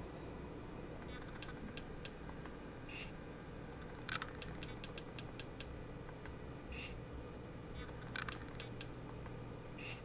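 Scattered key clicks, including a quick run of about eight taps about four seconds in, over a steady low hum.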